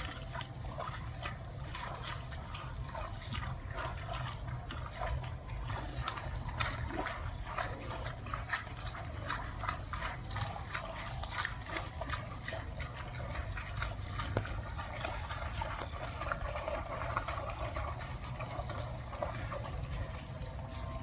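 Water buffalo grazing close by: many short, irregular crunches of grass being torn and chewed, over a steady low rumble.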